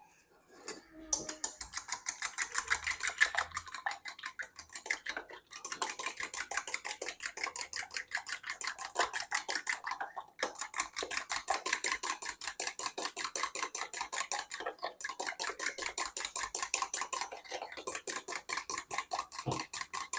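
Eggs being beaten fast in a bowl for scrambled eggs: a rapid, even clicking of the utensil against the bowl, stopping briefly about three times.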